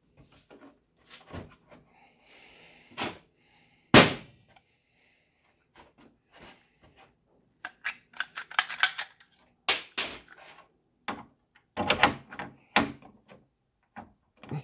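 Hand rivet gun being worked to set rivets through an aluminum hinge on a snowmobile hood: a run of metallic clicks and clacks, with a single loud crack about four seconds in and quick flurries of clicks later on.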